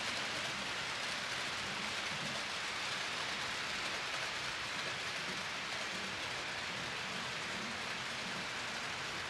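Model trains rolling along the layout's track: a steady, even rushing hiss of wheels on rails with a faint low motor hum under it.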